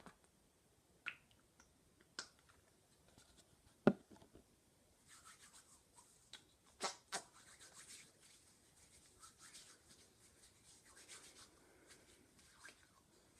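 Quiet ASMR tapping and rubbing by hand: scattered taps and clicks, the loudest a knock about four seconds in, then several seconds of soft scratchy rustling with two sharp clicks in it.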